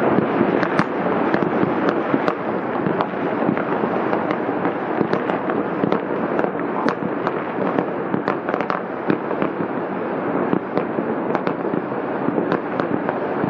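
New Year fireworks and firecrackers going off all over a city at once: a continuous rumbling barrage of distant bangs, with many sharp cracks at irregular moments.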